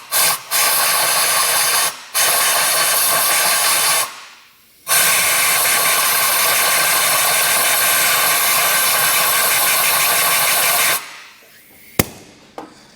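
Compressed shop air hissing from an air blow gun stuck down a spark plug hole, blowing out leftover aluminum chips after the hole was tapped for a thread insert. It comes in several blasts, short ones at first and then a long one of about six seconds, followed by a single sharp click near the end.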